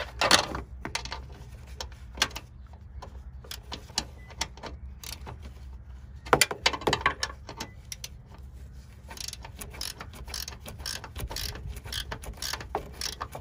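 Hand ratchet wrench clicking in short runs as bolts are worked, with scattered knocks of tools and parts; the clicking is quickest and densest in the last few seconds.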